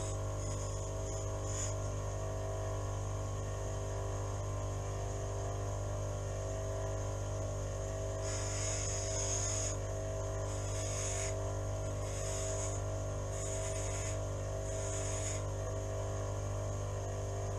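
Steady electrical hum with several even tones, from the running welding machine and workshop mains. About eight seconds in, five short bursts of hiss follow one another about a second apart.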